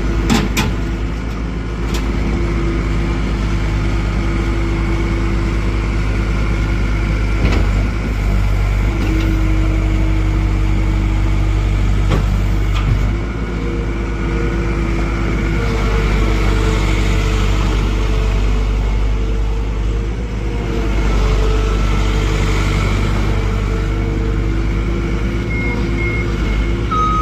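John Deere 320E skid steer loader's 66 hp Yanmar diesel engine running steadily, its pitch stepping up and down a few times. There are two swells of hiss in the middle and a few short high beeps near the end.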